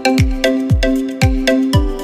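Background music with a steady beat: a deep kick drum that drops in pitch, about twice a second, under sustained pitched notes.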